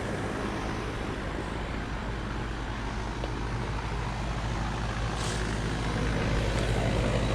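Grand Aire outdoor air-conditioning condensing unit running: a steady hum from the compressor, with the rush of its condenser fan.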